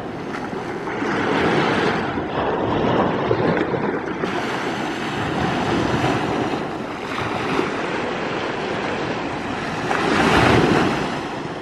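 Small Baltic Sea waves breaking and washing up a sandy beach, surging and ebbing every few seconds, the loudest surge near the end.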